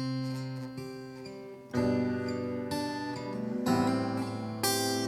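Acoustic guitar playing a slow instrumental introduction, strummed chords ringing out one after another.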